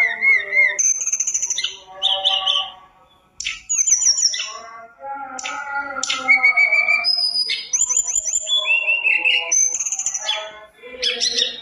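Caged tledekan gunung, a blue-and-orange flycatcher, singing a long, varied song of whistles, trills and quick sweeping notes, with a short break about three seconds in.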